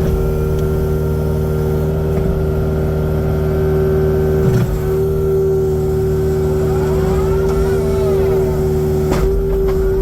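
Kubota excavator's diesel engine running steadily with a constant engine tone. A rising-then-falling whine comes about three-quarters of the way through, and there are sharp knocks about halfway and near the end.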